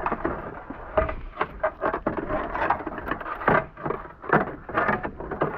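Irregular scraping and knocking strokes of snow being cleared by hand, a quick run of short strokes with uneven gaps.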